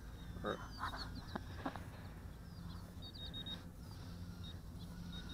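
Faint outdoor background: a low steady rumble with a few soft clicks in the first two seconds and some faint, short, high chirps.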